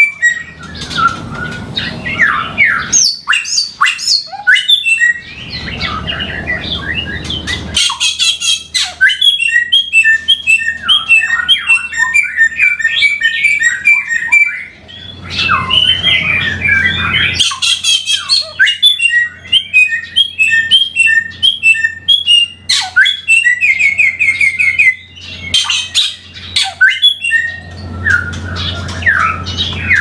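A samyong songbird singing a long, loud, energetic song of rapid, varied chattering notes, whistles and trills, broken only by brief pauses, with a faint low hum underneath in places.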